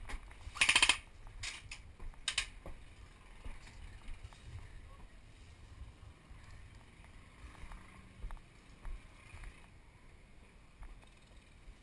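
A half-second burst of rapid automatic airsoft gun fire about half a second in, then a couple of single sharp cracks around two seconds in. After that, quieter footsteps and gear rustling on a wooden plank floor.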